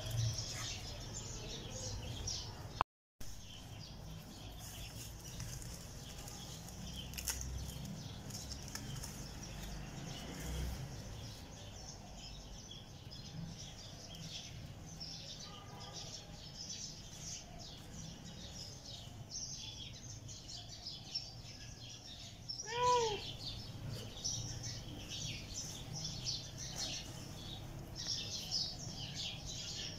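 Outdoor background of small birds chirping over a low steady rumble, with a brief dropout about three seconds in. About three-quarters of the way through comes one short, louder arched call.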